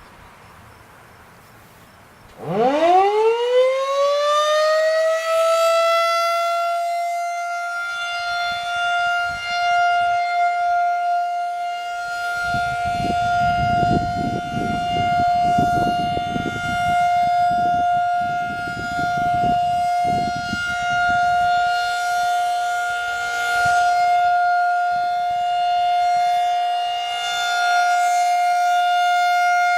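Federal Signal 2001-SRN outdoor warning siren starting up for a routine test. About two seconds in, its pitch climbs quickly and levels off within a few seconds into one steady high tone, its loudness swelling and fading as it runs. A low rumbling noise lies beneath it for several seconds in the middle.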